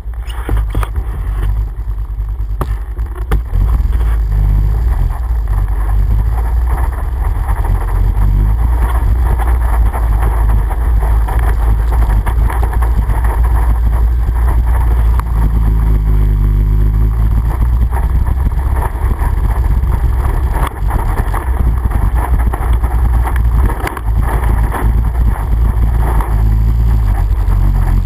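ATV engine running under way, a loud low drone whose note rises and falls with the throttle, heard close up from a camera mounted on the quad's rack.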